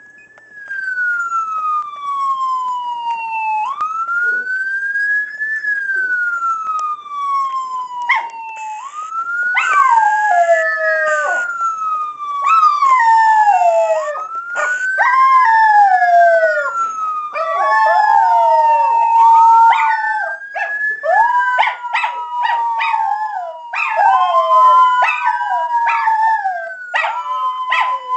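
A wailing siren sweeping slowly up and down in pitch, with two miniature schnauzers joining in about eight seconds in, howling in overlapping falling notes alongside it.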